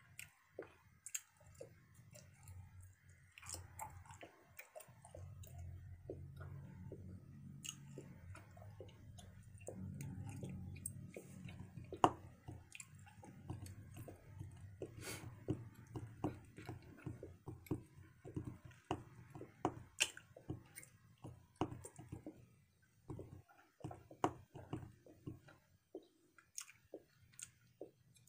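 A person chewing a large wad of five pieces of bubble gum: irregular wet clicks and smacks of the mouth, with a low hum underneath through the middle.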